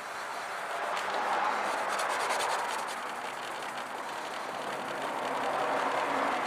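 Cleaning wipe rubbed back and forth over a ribbed plastic turn-signal lens: a scratchy rubbing that swells about a second in and again near the end. This is the cleaning and oxidation-removal step of restoring the lens.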